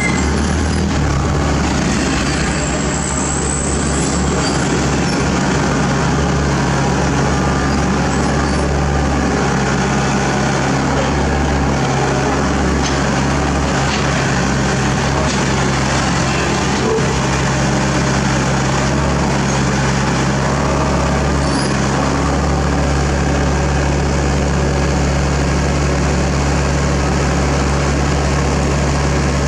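Diesel engine running steadily at an even low speed, a constant low hum.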